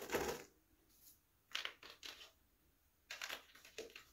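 Pine bark chips rustling and clattering in short bursts as handfuls are scooped from a plastic tub and dropped onto an orchid pot's bark substrate.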